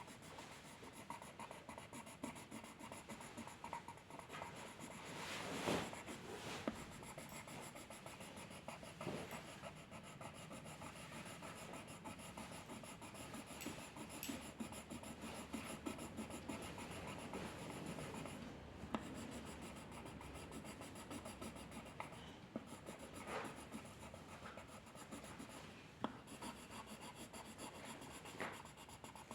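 A drawing tool rubbing and scratching on paper in steady, faint strokes, with a few brief louder strokes every few seconds.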